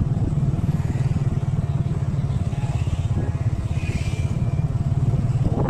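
Motorbike engine running steadily while riding along a town street, a low, even rumble with street traffic around it.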